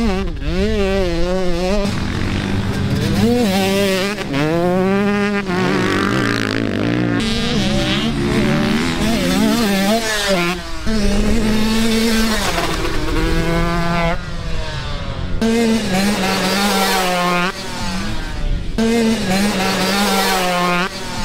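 Dirt bike engines revving on a motocross track, the pitch rising and falling over and over with throttle changes, over a steadier engine drone.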